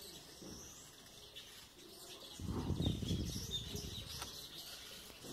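Birds chirping faintly in the background, with a low rumble about two and a half seconds in that lasts about a second.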